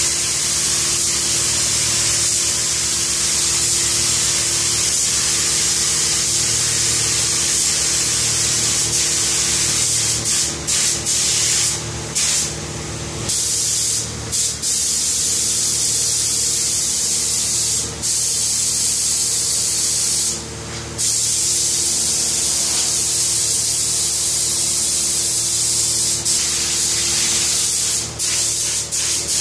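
Gravity-feed paint spray gun hissing steadily as air atomises the white top coat. The hiss breaks off briefly several times in the second half as the trigger is let go. A steady hum runs underneath.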